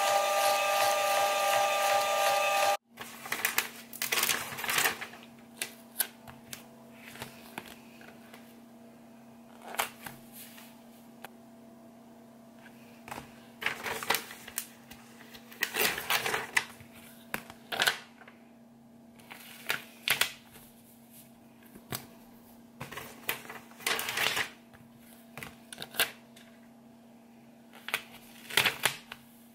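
A label printer runs with a steady whir for about three seconds as it feeds out a strip of round printed stickers, then cuts off abruptly. After that, scattered bursts of paper rustling and sliding as a stack of paper card sleeves is handled and shuffled on a countertop, over a faint steady hum.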